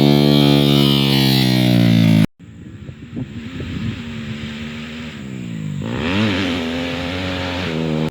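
Motocross dirt bike engine running at high revs. It cuts off abruptly about two seconds in, then a dirt bike engine runs again with its pitch rising and falling as the throttle is worked.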